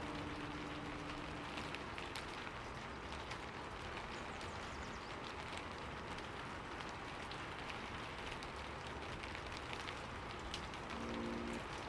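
Fire crackling: a steady hiss with frequent small pops and snaps. A held piano note fades out early in the stretch, and soft piano chords come back in near the end.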